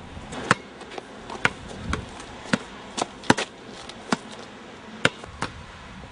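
A basketball bouncing on an indoor court: about nine sharp, irregularly spaced smacks over a steady background hiss.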